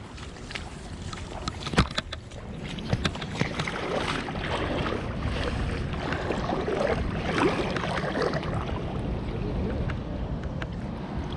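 Water splashing and sloshing, getting louder about three seconds in, with a sharp knock near the two-second mark.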